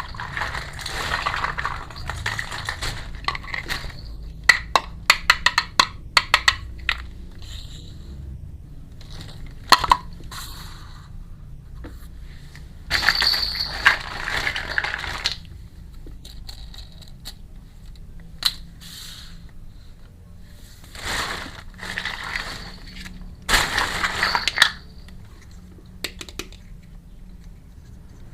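Plastic packaging rustling and crinkling in several bursts, between runs of quick, sharp clicks and taps of small hard miniature kitchen toy pieces being handled.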